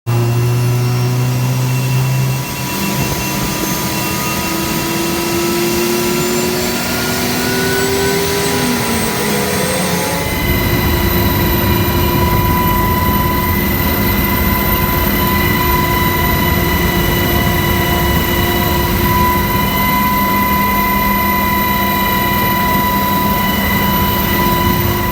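Helicopter turbine engine and rotor spinning up. Several tones rise steadily in pitch, then about ten seconds in the sound steps up to a louder, steady running tone with a deep rumble.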